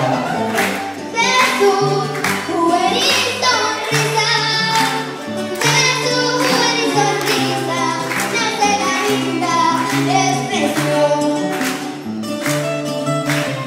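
Live band music: a girl sings a melody into a microphone over acoustic and electric guitars and a keyboard, with bass notes and a steady beat of about two strokes a second, all amplified through PA speakers.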